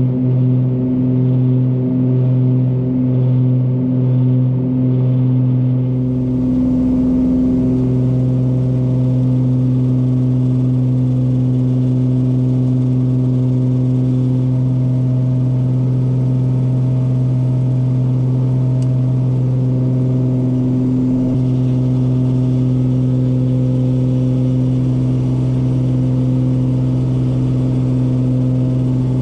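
Cessna 340A's twin Continental TSIO-520 piston engines and propellers droning steadily in the climb. For the first few seconds the drone pulses in a regular beat, then it smooths into an even drone.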